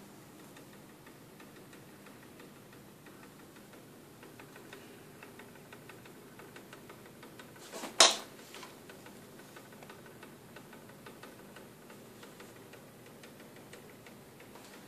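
Faint, rapid ticking from a Pioneer CT-210 cassette deck's tape transport as it plays, its drive running on a rubber band in place of a melted belt. One sharp, loud click comes about eight seconds in.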